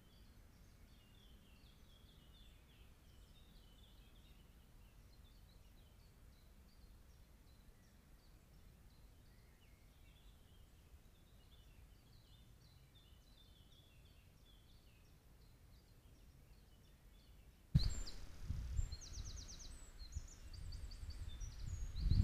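Faint, scattered songbird calls over a quiet outdoor background. About three-quarters of the way in the sound jumps louder, with a low rumble and bursts of high, rapidly pulsed chirping.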